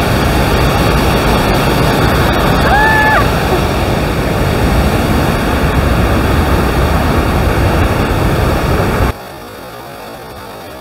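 The Rhine Falls rushing loudly, a steady roar of falling water close to the microphone. About nine seconds in it cuts off abruptly to a much quieter steady hiss. A brief tone sounds about three seconds in.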